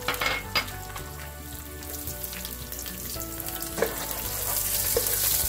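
Sliced onion frying in hot oil with mustard seeds, cumin and curry leaves: a steady sizzle that grows louder near the end, with a few short clicks near the start.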